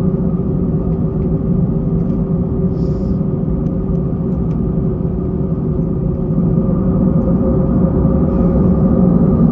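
Airbus A321-200 airliner heard from inside the cabin while taxiing: a steady engine hum and rumble with a few held tones, growing a little louder near the end.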